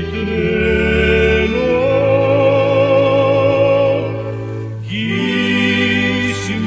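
A singer holds long notes with vibrato in a slow song, over a steady instrumental accompaniment; the phrase breaks briefly about five seconds in before the next line begins.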